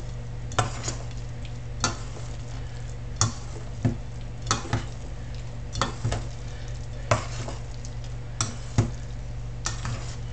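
A spoon stirring thick pancake batter in a bowl, clicking against the bowl about once a second, over a steady low hum.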